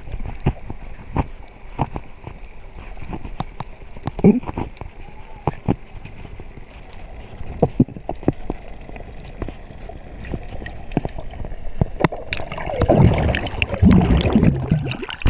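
Underwater sound through a camera housing: scattered sharp clicks, then from about 12 seconds in a loud rush of bubbles and splashing as the camera breaks the water's surface.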